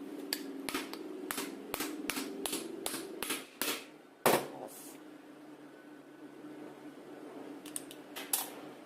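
Metal tapping on a power steering pump being dismantled, knocking its vanes into place. About ten quick light taps, roughly three a second, are followed by one harder knock, then a few more quick taps near the end.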